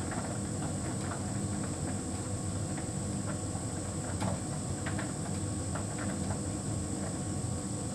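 Hotpoint heat pump tumble dryer running: a steady mechanical hum with a thin high-pitched tone over it, and scattered light clicks as the load tumbles in the drum.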